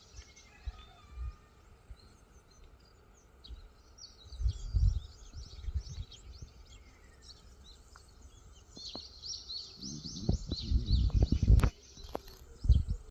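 Several small birds chirping and twittering, denser later on. Loud low rumbling gusts come midway and again near the end.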